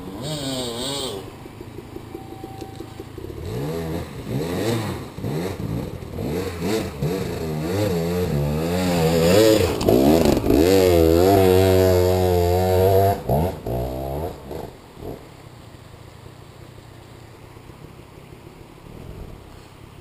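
Dirt bike engine revving in repeated throttle bursts, getting louder and holding a high steady rev for a few seconds past the middle, then dropping off suddenly and fading to a faint background.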